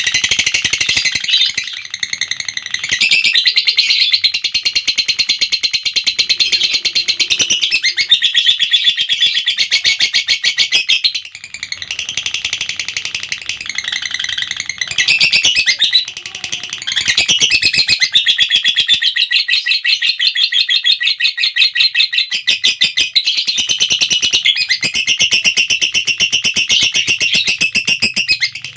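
Lovebird 'ngekek': a long, rapid, high-pitched chattering trill that runs on in long unbroken stretches, broken by short pauses about 11 and 16 seconds in.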